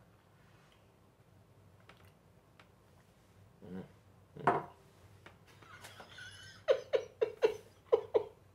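A man's short vocal noises after a sip of harsh whiskey, then a run of about six quick stifled laugh bursts near the end as he tries not to crack up.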